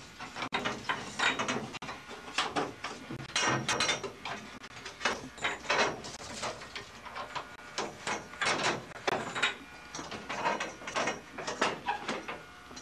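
The aileron control linkage of a small homebuilt aircraft being worked by hand: irregular metallic clicks, knocks and rattles that go on throughout.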